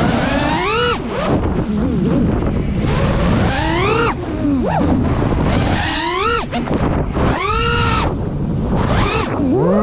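FPV quadcopter's brushless motors whining, the pitch sweeping up and dropping back about five times as the throttle is punched and cut, with wind rushing over the microphone.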